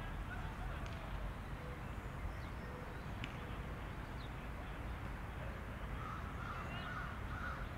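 Outdoor ambience: birds calling over a steady low background rumble, with a run of short calls near the end.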